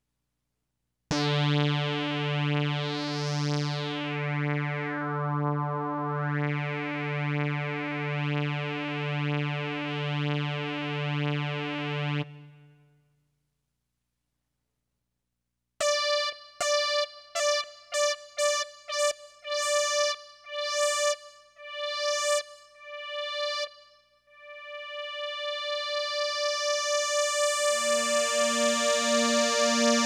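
Roland SC-55 sound module playing synth notes under MIDI control as its parameters are changed. A held low note pulses evenly while its tone brightens and dulls twice, as the filter cutoff is turned. After a pause come a quick run of short, separate higher notes, then a note that fades in slowly from a long attack setting, joined near the end by a lower note.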